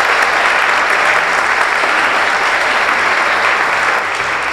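An audience applauding steadily after a speech, easing off a little near the end.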